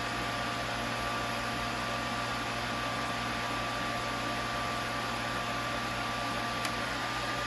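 Tormach CNC mill spindle spinning a lathe chuck at about 3000 RPM in the low belt range: a steady machine hum with a thin, even whine. One faint tick sounds near the end.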